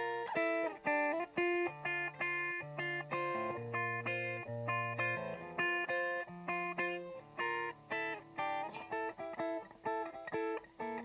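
Yamaha Revstar electric guitar with a P90-format pickup, played through a crunch tone, picking and strumming chords in a steady rhythm.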